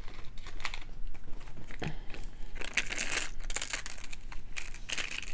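Small clear plastic zip bag of beads crinkling as it is handled in the hands, in several irregular short bursts.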